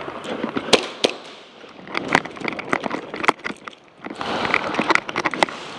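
Airsoft guns firing in sharp, irregular pops, single shots and short quick strings, with a denser run of shots past the middle.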